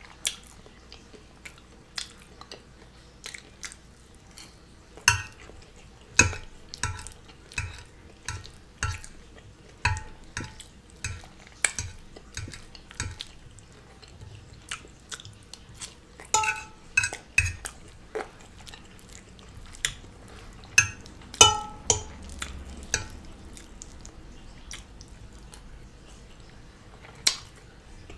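Metal fork clinking and scraping against a large ceramic serving platter while food is picked up, in irregular sharp taps every second or so, several with a brief ring.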